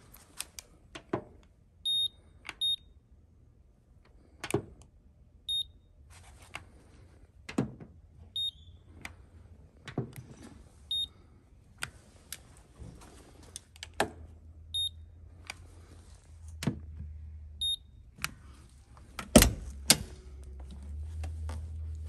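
Paint thickness gauge giving a short high beep with each reading, about seven beeps a few seconds apart, among clicks and knocks as the probe is handled and set on the body panels. The loudest knock comes near the end.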